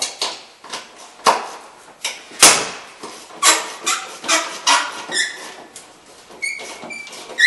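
Hand ratchet wrench loosening the front strut's upper mounting nuts: a string of short, sharp ratcheting strokes, with a few short high squeaks near the end.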